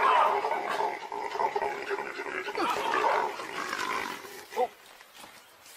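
Loud, overlapping wild animal calls, cries and growls from a leopard and baboons, dying down near the end after one last sharp call.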